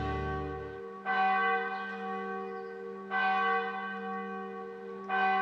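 Church bell tolling: three strokes about two seconds apart, each ringing on into the next. Background music ends in the first second.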